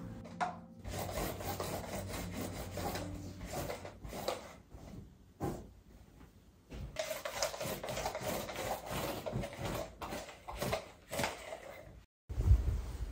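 Irregular rubbing, scrubbing strokes against a hard surface, with a lull around the middle; the sound cuts off abruptly near the end.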